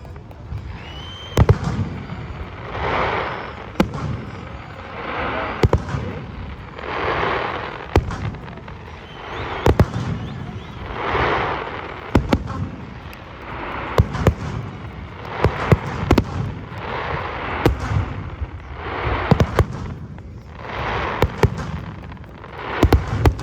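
Fireworks display: sharp bangs going off every second or so, with a noisy swell rising and fading about every two seconds.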